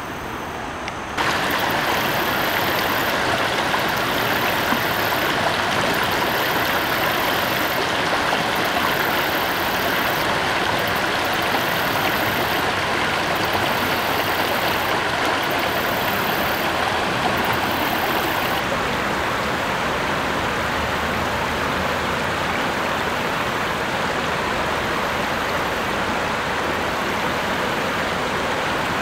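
Shallow river water rushing and splashing over rocks: a steady hiss of running water that gets louder about a second in.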